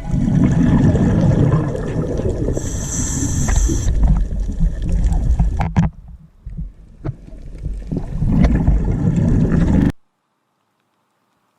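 Sea water sloshing with a deep, rumbling noise and scattered small knocks. It dips in loudness midway, swells again, then cuts off suddenly near the end.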